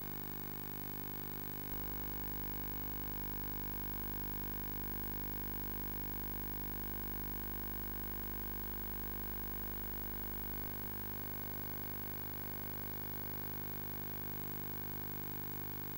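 Steady electrical hum with an even background hiss and no other sound, the kind of noise laid under a silent archival film transfer. A small click comes about two seconds in, where the deepest part of the hum grows stronger, and it drops back again a little before eleven seconds.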